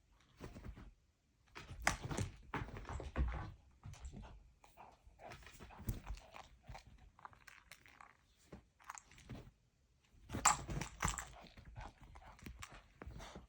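A dog chewing and crunching on something, in irregular clusters of crunches and knocks, loudest about two to three seconds in and again around ten seconds in.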